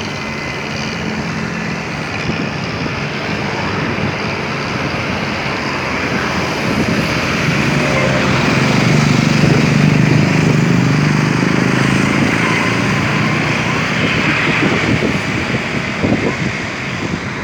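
An engine's low rumble grows louder toward the middle and then fades, over a steady hiss of background noise.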